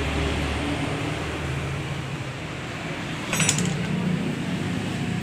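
Steady workshop background noise with a low hum, and a brief metallic clinking about three and a half seconds in.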